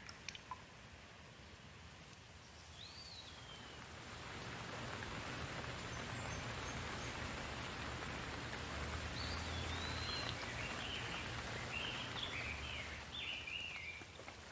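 Rain falling, from a few scattered drips to a steady hiss that swells about four seconds in. Bird calls chirp over the rain once early and repeatedly in the second half.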